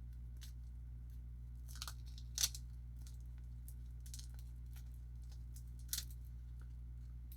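Protective plastic film being peeled off a new wristwatch, crinkling and crackling in short scattered bursts, the loudest about two and a half seconds in and another near six seconds. A steady low hum runs underneath.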